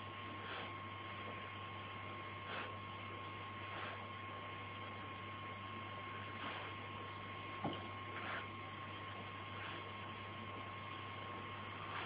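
Steady electrical hum and hiss with a thin high whine. A few faint, brief sounds come through, and there is one sharp click about seven and a half seconds in.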